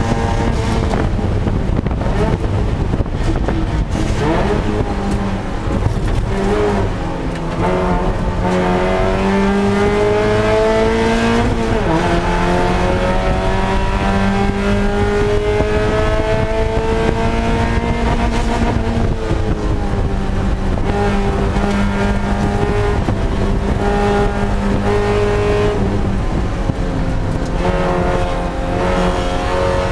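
Spec Miata race car's four-cylinder engine heard from inside the cockpit under racing load, its note climbing as it accelerates, dropping at a gear change about twelve seconds in, then climbing again and falling away around twenty seconds in, over constant road and wind noise.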